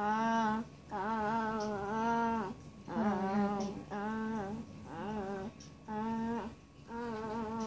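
A person humming a tune in a series of short, steadily held notes, with brief pauses between the phrases.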